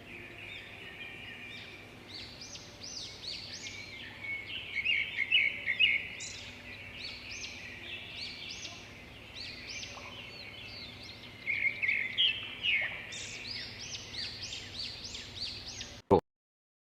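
Several small birds chirping and calling together in a dense chorus of quick, high, arching notes. The audio cuts off suddenly with a click about a second before the end.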